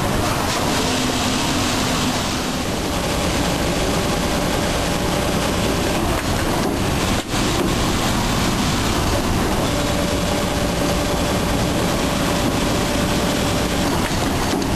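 Steady machine noise of a garment sewing floor: industrial sewing machines running, with faint hums that come and go and a brief drop in level about seven seconds in.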